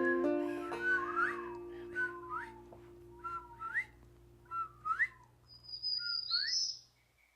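Whip-poor-will calls: five 'whip-poor-will' phrases, each ending in a rising slur, over the last held note of the song's accompaniment as it fades out.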